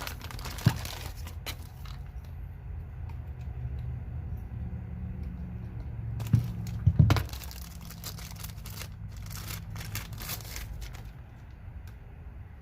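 Packaging being handled while unpacking a tool: crinkling and rustling, with scattered clicks and a few sharp knocks about halfway through, over a steady low hum.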